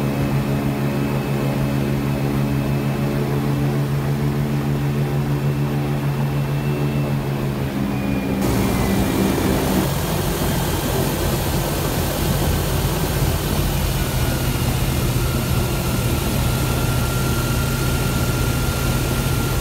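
Airboat's automotive engine and propeller running steadily with a loud, even drone. About eight seconds in the sound abruptly turns harsher, with more hiss.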